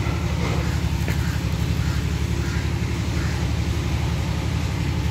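Steady low hum of an engine running at idle, even and unchanging throughout.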